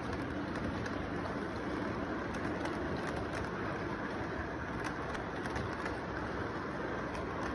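Model train cars rolling along the track, a steady rolling rumble with irregular light clicks from the wheels over the rail joints, over a steady background noise.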